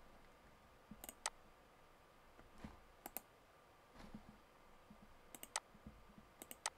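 Faint computer mouse clicks, mostly in quick pairs, four times at a couple of seconds' spacing.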